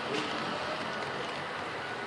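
Model train rolling past on its track, a steady rushing rumble of wheels and running gear.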